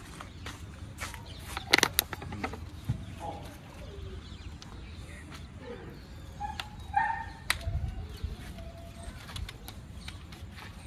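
A street dog held on a catch-pole gives a few short whines among scattered clicks and scuffs of handling. The loudest click comes about two seconds in.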